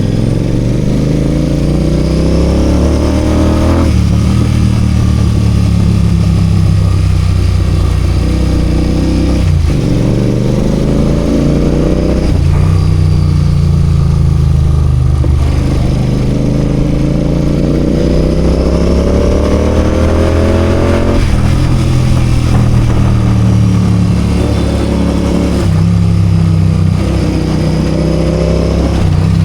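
Royal Enfield GT 650's 648 cc parallel-twin engine pulling through traffic: its note climbs steadily under throttle and drops sharply at each gear change or throttle lift, about half a dozen times.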